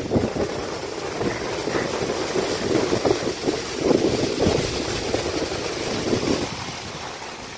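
Wind buffeting the microphone in uneven low gusts, over a faint steady rush of water spilling past a dam's spillway gate. The gusts ease a little near the end.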